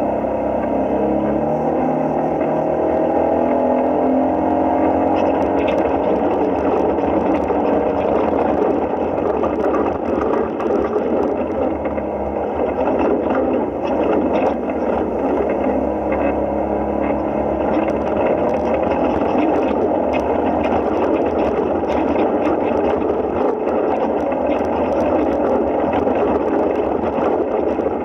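Side-by-side UTV engine running under load, heard from the driver's seat; its pitch rises over the first few seconds as it accelerates, then holds steady, with frequent rattles and knocks from the rough trail.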